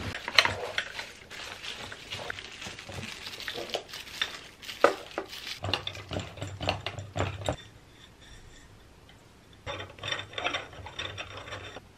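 Plastic packaging wrap crinkling and rustling as floor-lamp parts are unwrapped by hand, with scattered light knocks and clicks. It goes quiet for a couple of seconds, then crinkles again near the end.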